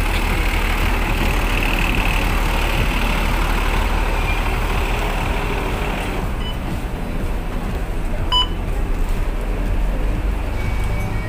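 Diesel bus engine idling at the kerb with street noise, then the steadier rumble inside the bus as the passenger boards. Late on, one short electronic beep from a fare card reader.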